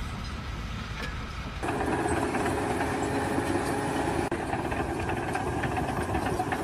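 A machine running steadily with a low rumble; about a second and a half in, a louder, buzzier mechanical whir joins it and keeps going.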